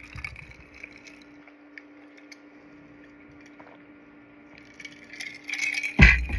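Close-miked eating sounds from someone eating pizza toast: soft wet mouth clicks and chewing, over a faint steady hum. The chewing grows louder and crackly near the end, with a sudden loud thump about six seconds in.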